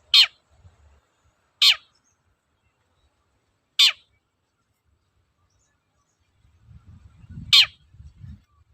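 Long-tailed shrike (cendet) giving four short, sharp calls, each sweeping steeply down in pitch, spaced one to four seconds apart. A faint low rumble runs under the last call.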